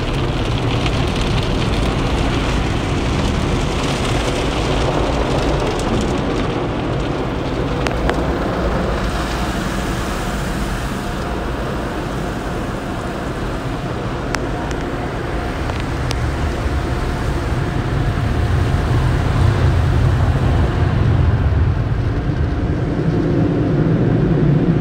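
Automatic tunnel car wash heard from inside the car: water jets and spray beating steadily on the body and windshield. In the last several seconds the overhead drying blowers take over with a louder, steady low rumble.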